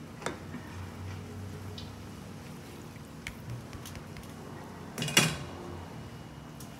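Wooden spatulas knocking and scraping against a large cooking pot while tossing noodles, with a few scattered clicks and a louder clatter of knocks about five seconds in.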